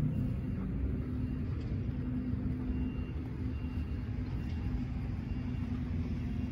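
Steady low rumble of road traffic and vehicle engines, with a continuous engine hum.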